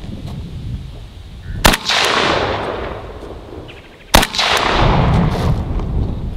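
Two rifle shots about two and a half seconds apart, each a sharp crack followed by a long rolling echo that fades over a second or more.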